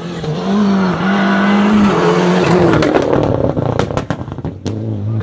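Rally car engine running hard at high revs, the sound swelling in the first second and staying loud for about two seconds, then several sharp cracks between about three and five seconds in.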